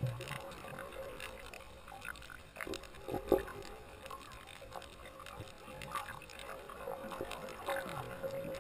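Underwater sound picked up by a camera submerged over a coral reef: scattered clicks and crackles over a faint steady hum and a low rumble, with one louder knock a little over three seconds in.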